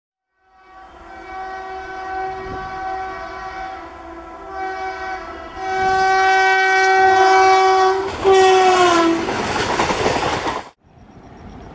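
WAP-4 electric locomotive's horn sounding in long blasts as the train approaches, growing louder, then falling in pitch as the locomotive passes. The noise of the coaches rushing past follows and cuts off suddenly near the end.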